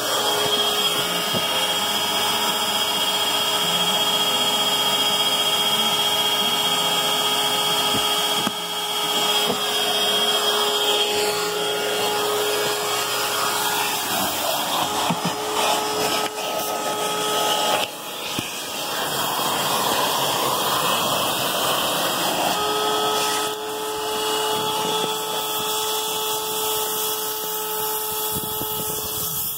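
Vacuum cleaner motor running steadily as it cleans a car's floor carpet and seat tracks, its pitch shifting and its level dipping briefly a few times as the nozzle moves.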